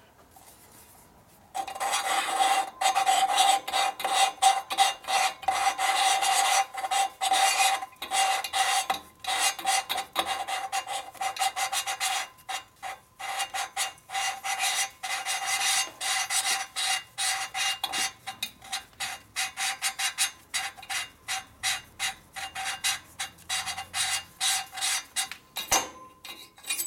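Exhaust valve being hand-lapped into its seat in a Harley-Davidson shovelhead's aluminium cylinder head: a gritty rasping as the valve is twisted back and forth against its seat, with a ringing tone through the first part. It starts about a second and a half in, and the strokes grow more spaced out in the second half; the lapping is bedding the valve in until it shows a gray contact mark all the way round the seat.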